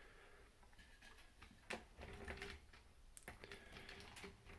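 Faint, scattered light clicks and taps from 3D-printed plastic parts being handled, over near-silent room tone, with a few more clicks in the second half.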